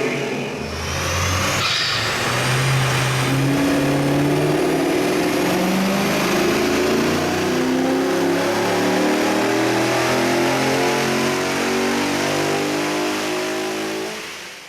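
HSV Maloo's naturally aspirated 6.2-litre V8 held under throttle on a chassis dyno, its engine note climbing steadily in pitch for about fourteen seconds, then backing off near the end.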